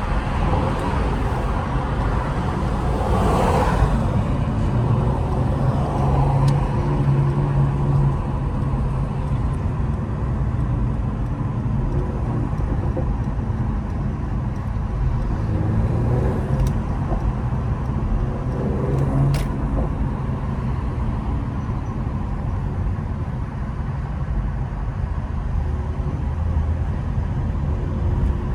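Car being driven, a steady low engine and road rumble.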